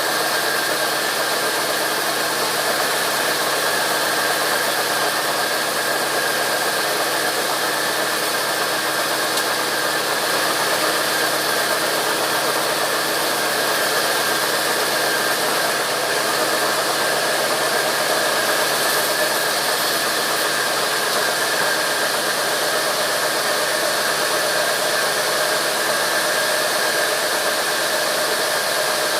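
Sawmill machinery running steadily: a constant mechanical noise with a few steady tones and no change in pace.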